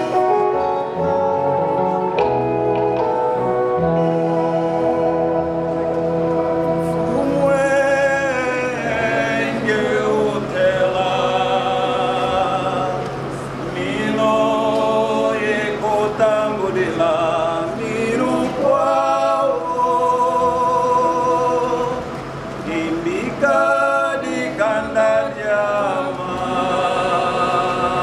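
A choir singing a hymn, opening on long held chords before the voices come in with wavering, changing notes.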